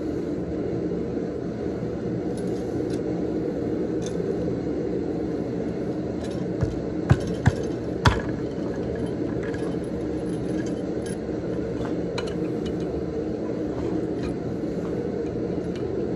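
Steel clinking and knocking as a hot steel pigtail is worked around an upright stake clamped in a vise with pliers, with four sharp metallic knocks in quick succession about seven seconds in. Under it is the steady rushing noise of the running forge.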